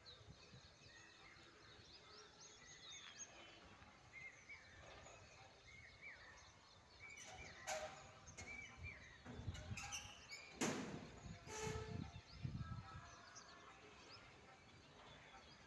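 Faint outdoor ambience at sunrise with many short, high chirps of birds. In the second half come a few sharp knocks or pops and some low rumbling.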